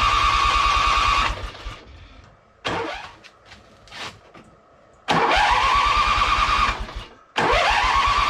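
Husqvarna riding mower's electric starter cranking the engine in three bursts, the starter whine rising as each one begins, with a few short clicks in the gap. The engine turns over evenly but never fires: the newly fitted ignition coil is giving no spark.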